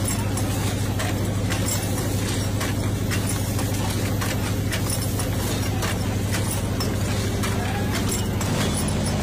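Rotary glass-forming machine running: a steady low hum with a sharp click from its mechanism roughly once a second.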